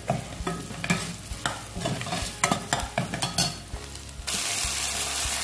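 A metal ladle stirs and scrapes chopped onions and garlic in a stainless steel pot, with repeated clinks and scrapes against the pot over a low sizzle. About four seconds in, a steady frying hiss starts abruptly and takes over.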